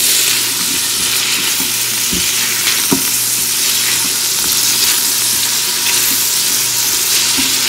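Sliced onions sizzling in hot oil in a stainless-steel Instant Pot inner pot on sauté mode, stirred with a silicone spatula. A steady frying hiss runs throughout, with a couple of light knocks of the spatula against the pot about two and three seconds in.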